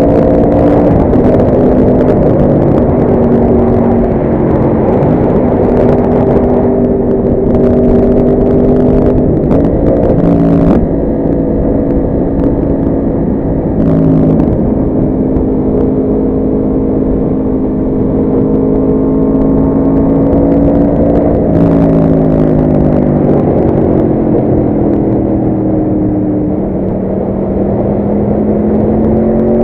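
Yamaha R1 motorcycle's inline-four engine running hard, its revs stepping up and down through gear changes. About two-thirds through the pitch falls away steadily as it slows, then climbs again near the end, over a steady rush of wind noise.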